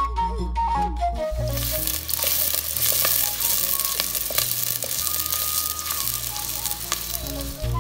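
Chopped onions sizzling as they hit hot oil in a stainless steel pot and fry while being stirred; the sizzle sets in about a second and a half in. Background music plays underneath.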